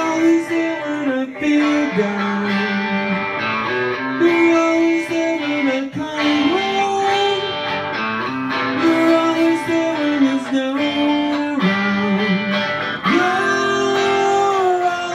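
A small rock band playing a song together live: strummed electric guitars over a drum kit, with sung melody lines.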